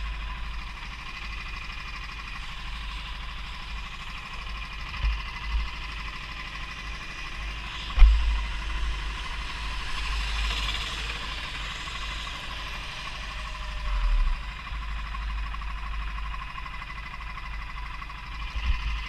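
Go-kart engine running steadily as the kart is driven around the track, over a constant low wind rumble on the camera. A single sharp knock sounds about eight seconds in.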